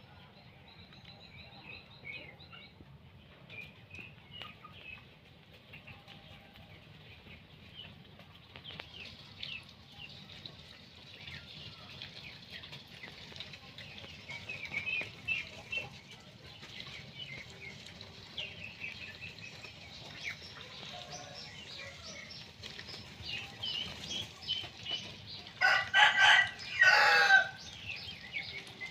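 Chickens: a rooster crows once near the end, the loudest sound, its call falling in pitch at the close, over many short chirping and clucking calls throughout.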